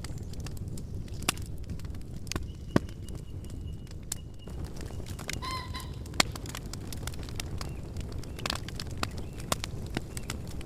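Campfire burning: a low steady rumble of flame with sharp crackles and pops from the burning wood, the biggest pops about a second, three seconds and six seconds in. A brief high squeaky call sounds about halfway through.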